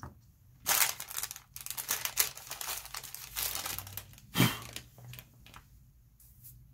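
A sheet of paper rustling and crinkling as it is handled and lifted off a pastel drawing. It comes as a run of crackles, loudest about a second in and again a little past four seconds in.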